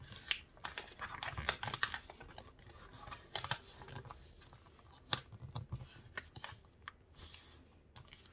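Sheet of paper being folded by hand on a tabletop to form a paper airplane's wing: rustling and crinkling, with many short crisp ticks as fingers press and run along the crease.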